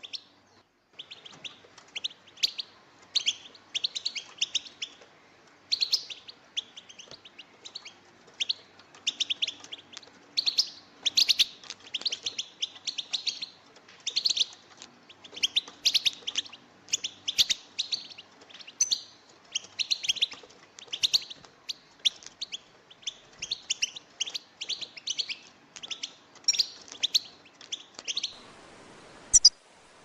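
European goldfinch calls: quick twittering bursts of high chirps, cluster after cluster, stopping near the end.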